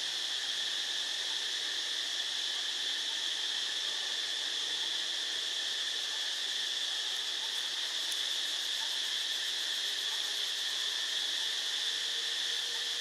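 Steady insect chorus: a continuous high-pitched buzzing drone that holds unchanged throughout.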